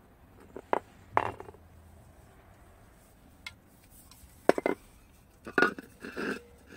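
A glass beer bottle and an aluminium beer can knocking and clinking as they are handled and picked up: a few short, sharp clinks about a second in, then a quick cluster of knocks and a longer scrape-like rattle near the end.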